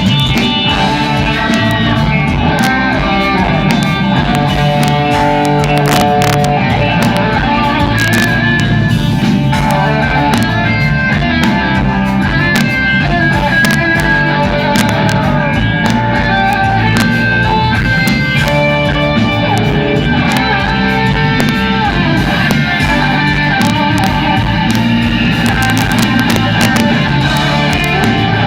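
Live progressive rock band playing an instrumental passage, with electric guitar over bass and drums.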